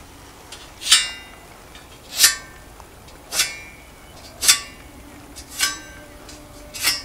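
Six evenly spaced metallic strikes, a little over a second apart, each ringing briefly.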